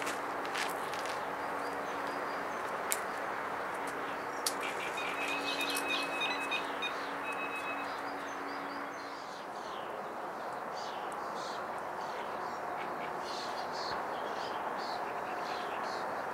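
Electronic carp bite alarm beeping: a rapid run of short, same-pitch beeps a few seconds in, the signal of a fish taking line. Later, small birds chirp over a steady outdoor hiss.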